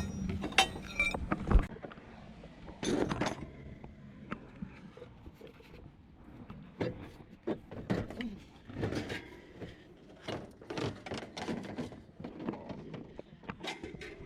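Scattered knocks, thunks and light clinks of hard objects being handled, with a low thump about a second and a half in and a louder knock about three seconds in.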